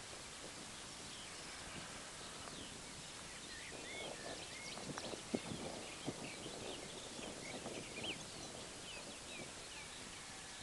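Small birds chirping and singing, many short calls throughout, with irregular footsteps on stony ground crunching now and then, mostly in the middle part.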